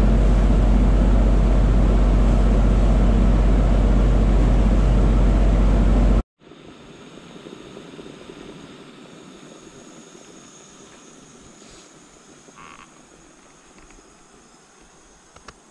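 Lake launch under way: a loud, steady rush of wind and wake over a deep rumble, cut off suddenly about six seconds in. After that a much quieter, steady hiss fades slowly.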